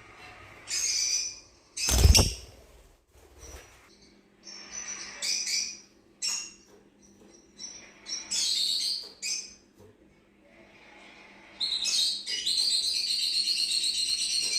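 Fischer's lovebirds chirping in short bursts, then a longer run of rapid chirping near the end. A single loud thump about two seconds in.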